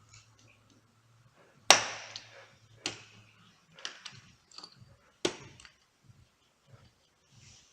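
Four sharp metallic knocks, the first the loudest, each with a brief ring, as tools and starter-motor parts are struck or set down on a workbench; a faint low hum runs under the first half.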